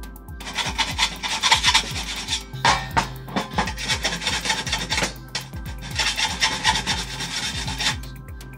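Hand file rasping along the edge of a length of steel cable trunking, in two long spells of scraping strokes with shorter strokes in between.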